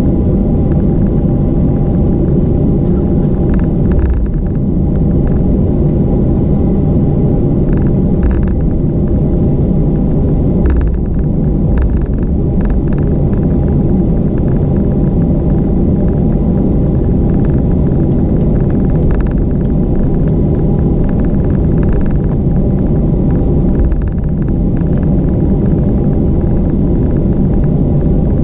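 Cabin noise of a Boeing 737-400 taxiing, its CFM56 turbofans at low power: a steady rumble with a hum in it, with a few light knocks and rattles here and there.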